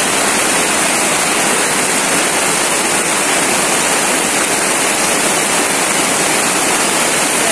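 Steady rain falling on a canvas circus tent, an even hiss that does not let up.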